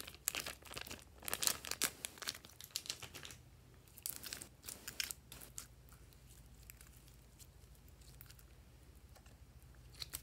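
Glossy slime squished and stretched by hand, giving dense sticky crackles and pops for the first three seconds or so, then scattered, fainter crackles as it is pulled out and laid down, with a single click near the end.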